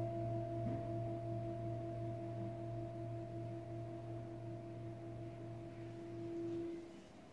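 An antique Tibetan singing bowl held on the palm rings with a deep, steady hum and a slowly pulsing waver, gradually fading. The ringing cuts off shortly before the end.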